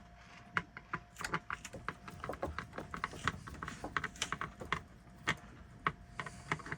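Irregular light clicks and taps, several a second, of a screwdriver and hands working at a screw and plastic parts inside a bread maker.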